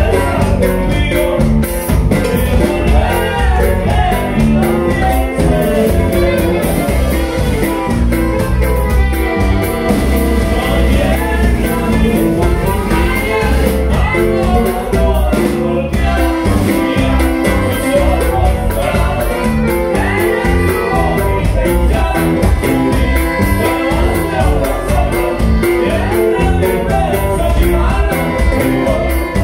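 Live norteño band playing with a male lead singer, electric bass guitar and drum kit, heard through the stage PA with a heavy low end.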